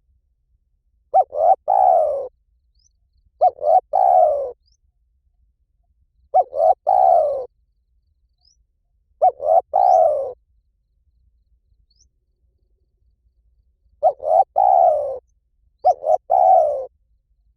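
Spotted dove cooing: six phrases a few seconds apart, each a short note or two followed by a longer falling coo, with a longer pause in the middle.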